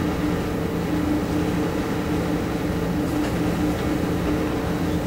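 A steady mechanical hum with a few low tones over an even rushing noise.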